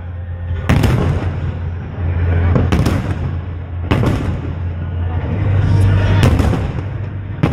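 Aerial firework shells bursting: several sharp bangs a second or two apart, each trailing off, over a steady low hum.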